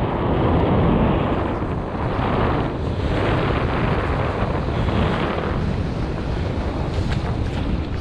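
Strong wind buffeting the microphone of a kiteboarder's body-mounted camera, over the rush of water past the board as it moves across the sea.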